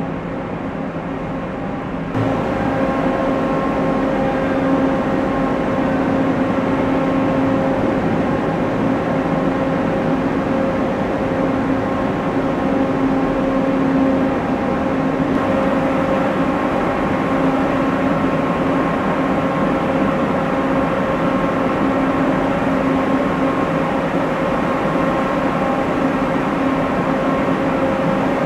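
Engines of several amphibious assault vehicles running steadily inside a ship's well deck: a constant drone with a steady hum and whine, which gets louder about two seconds in.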